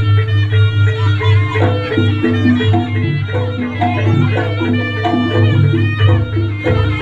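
Jaranan accompaniment music: a shrill, reedy wind melody that bends and slides over a steady low drone and short repeated percussion notes.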